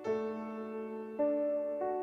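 Background piano music: sustained chords struck about every half second to second, each fading before the next.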